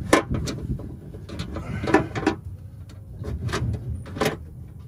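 Metal clunks and knocks of the oil pump in a Jeep Cherokee XJ being worked loose and dropped into the steel oil pan, about six knocks, the loudest near the start and about two seconds in.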